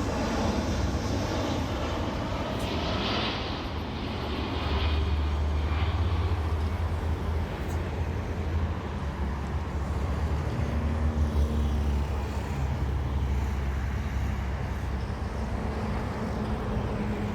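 A jet airliner's engines rumbling as it flies by on landing approach, with a deep rumble that swells through the middle and then eases.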